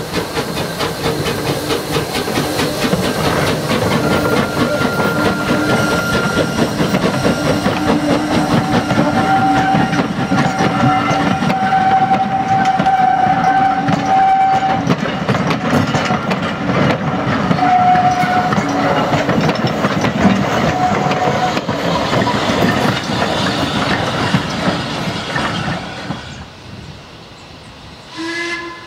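An industrial saddle-tank steam locomotive working a passenger train past at close range: rapid chuffing exhaust beats with the coaches' wheels clattering over the rail joints, and steady high squealing tones held over it in the middle. The sound drops off suddenly a couple of seconds before the end, and a short pitched note, like a distant whistle, follows near the end.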